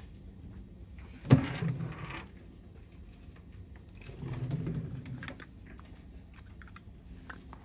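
Handling noises of Zippo lighters being put aside and picked up: one sharp click about a second in, then a longer, softer rubbing and rustling sound a few seconds later.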